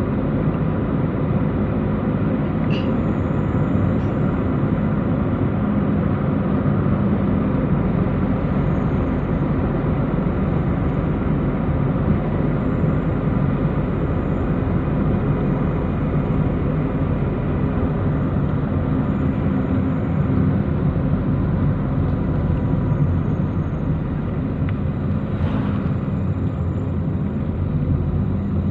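Car driving at a steady speed, heard from inside the cabin: a continuous, even hum of engine and tyre-on-road noise.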